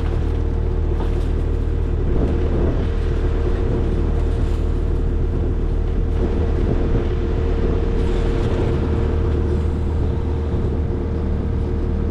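Skid steer engine running steadily at a constant speed, a continuous drone with no changes in pitch.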